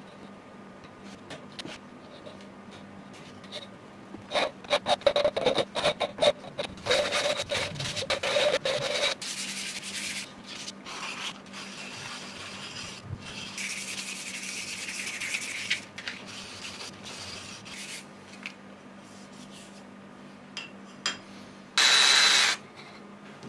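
Work on a small wooden hammer handle. First comes a run of quick cutting strokes from a hand edge tool shaving the wood. Then the handle rubs steadily as it is sanded on a sheet of sandpaper, and near the end a cordless drill whirs for under a second as a thin bit bores a small hole in the handle.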